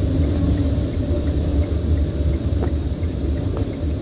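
Low, steady rumble of an SUV heard from inside the cabin, with a faint regular ticking about three times a second and a couple of light clicks near the end.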